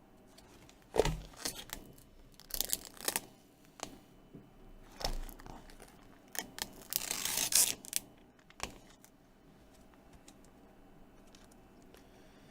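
Plastic packaging of a replacement tablet glass screen being torn and crinkled open, in short rustling bursts with a few sharp clicks; the longest, loudest tearing comes about seven seconds in.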